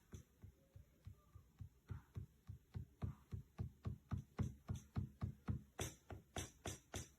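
Electronic drum sounds triggered from a Native Instruments Maschine Mikro MK3 pad controller: a steady beat of kick-like thumps and hi-hat-like ticks, about three hits a second, growing louder about three seconds in.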